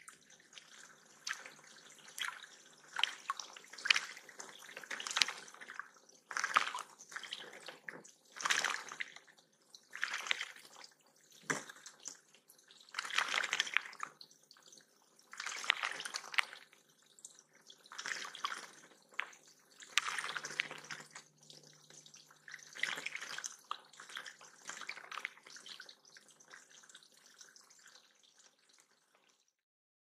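A blue jay bathing in a shallow pond, splashing the water in short repeated bouts about every one to two seconds; the splashing stops near the end.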